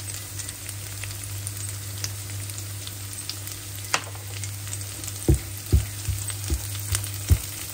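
Chopped herbs for ghormeh sabzi frying in oil in a nonstick pan: a steady sizzle over a low hum. From about five seconds in, a silicone spatula stirs the herbs, giving several soft knocks against the pan.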